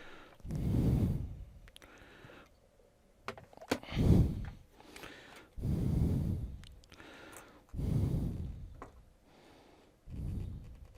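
A person breathing heavily close to the microphone: five rushes of breath, roughly one every two seconds, with a few faint small clicks between them.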